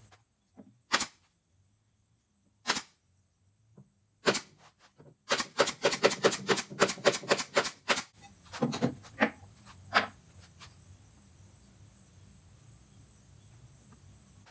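A series of sharp knocks: a few single ones, then a quick run of about fifteen in under three seconds, then a few more spaced out near the end. A low hum and faint steady high tones run underneath.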